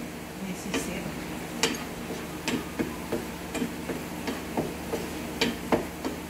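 A cooking utensil stirring diced mango in a nonstick frying pan, tapping and scraping against the pan in irregular clicks about one or two a second, as the mango cooks down with sugar and lemon into a jam.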